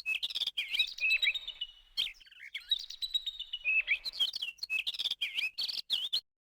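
Birds chirping and twittering in quick, warbling runs of calls, mixed with many sharp clicks. It cuts off abruptly near the end.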